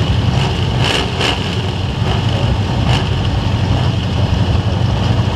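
Demolition derby trucks' engines running loud and rough, with a few sharp knocks about a second in and again near three seconds.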